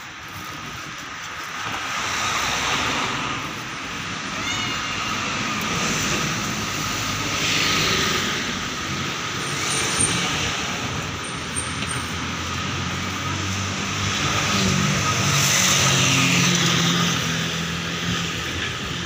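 Street traffic: cars pass one after another, each rising and fading over a few seconds. The loudest pass comes near the end and carries a low engine hum.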